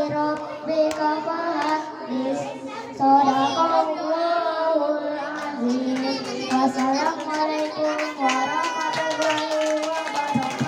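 A boy singing solo into a handheld microphone: long held notes with ornamented bends in pitch. Sharp claps or taps join from about eight seconds in.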